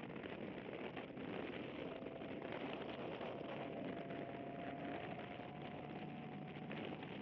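Toyota GT86 on the move, heard from an action camera mounted outside the car: steady wind and road noise, with a faint engine note that rises slowly in pitch over the last few seconds.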